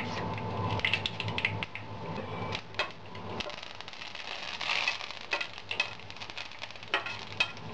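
Mustard and cumin seeds spluttering in hot oil in a frying pan: irregular sharp pops over a light sizzle, the sign that the oil is hot enough for tempering. About four seconds in, a louder hiss as curry leaves go into the oil.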